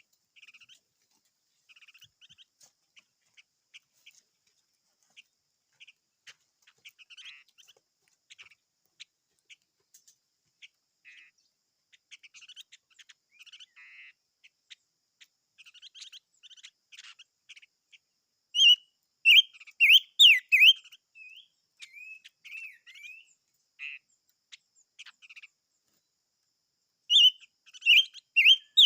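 A small songbird calling: faint, scattered short chirps at first, then, from about two-thirds of the way in, loud bursts of quick swooping, warbling notes, in two bouts separated by a pause of a couple of seconds.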